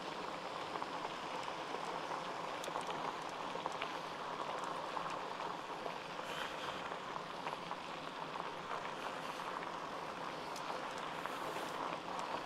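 Steady hiss with scattered faint ticks from a mountain bike rolling along in light drizzle: rain and tyre noise together.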